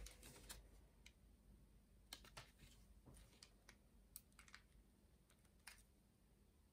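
Near silence with faint, irregular small clicks and light crinkles: a clear plastic sleeve holding a sheet of rhinestones being handled while stones are picked off with a tool.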